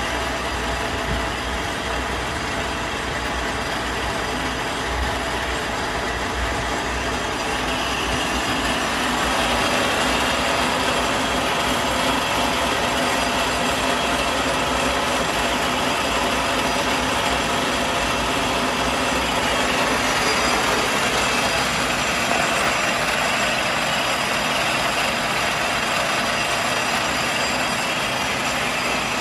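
Davenport Model B 3/4-inch five-spindle automatic screw machine running, a steady mechanical noise of its spindles, cams and slides that grows a little louder about eight seconds in.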